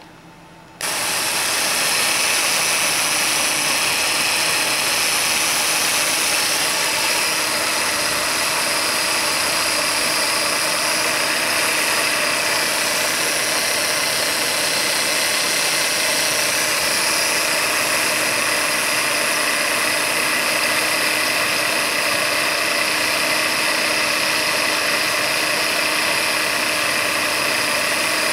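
Ford Taurus 3.0 L OHV V6 engine comes on abruptly about a second in, then idles steadily.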